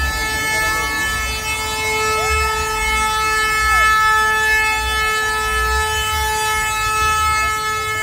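A vehicle horn held in one long, unbroken blast at a single steady pitch, with crowd voices shouting underneath.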